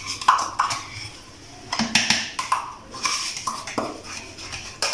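A spoon scraping plain yogurt out of a plastic cup into a blender jug: a string of light scrapes and knocks at uneven intervals.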